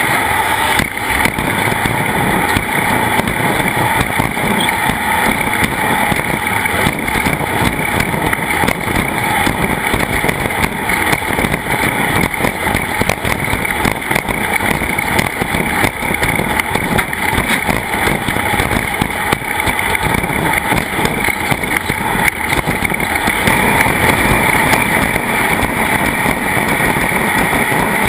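A racing vehicle's engine running steadily at speed under a constant rush of noise, with no change in pitch.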